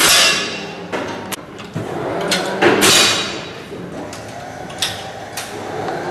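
Break-barrel air rifles firing: several sharp cracks at uneven intervals, the loudest right at the start and about three seconds in, each ringing briefly in the hall.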